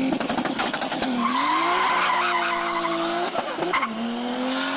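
Nissan Skyline GT-R R33's twin-turbo RB26 straight-six accelerating hard, its pitch rising through the revs and dropping at upshifts about a second in and again about three and a half seconds in. A high squeal runs over the engine for about two seconds in the middle.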